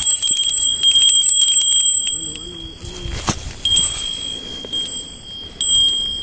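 Small bell on a fishing rod jingling and ringing in bursts as a fish tugs at the bait: a bite. It rings on until about two seconds in, then breaks off, and rings again twice more.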